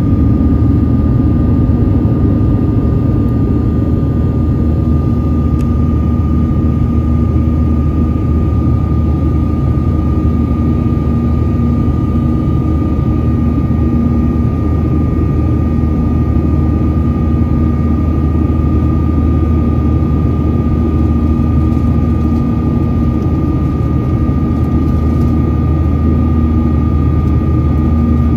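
Cabin noise of a Boeing 737-800 in the climb after takeoff: its CFM56-7B turbofan engines run steadily, a dense low rumble with a constant whine above it.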